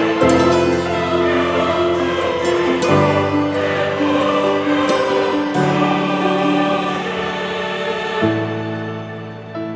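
Background music: a choir holding sustained chords that change every couple of seconds.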